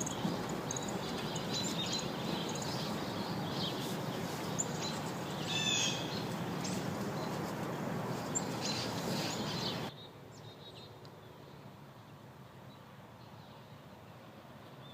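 Outdoor background noise with birds chirping here and there, one louder call about halfway through. About ten seconds in it cuts abruptly to a much quieter steady background.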